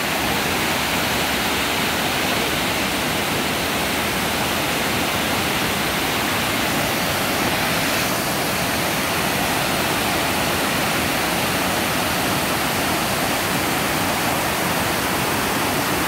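Heavy overflow water rushing down a sloping spillway and tumbling over rocks, giving a steady, unbroken rush of falling water.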